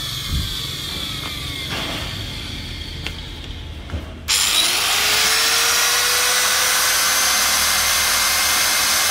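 A small electric angle grinder switched on about four seconds in: the motor spins up with a rising whine and then runs steadily at no load. Before it starts, a faint falling whine of a motor coasting down and a few handling knocks.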